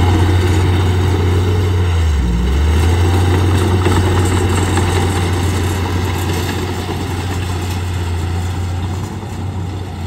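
Bulldozer's diesel engine running steadily, its low note dropping briefly about two seconds in and then picking back up.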